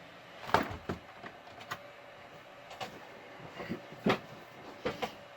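Plastic clicks and knocks of a CD case being opened and an install disc being loaded into a PC's optical drive tray. There are about eight irregular clicks, the loudest about half a second in and again about four seconds in.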